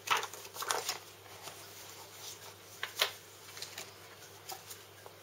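Paper leaflets rustling as they are handled and leafed through. The rustling is heaviest in the first second, with one sharp crackle about three seconds in.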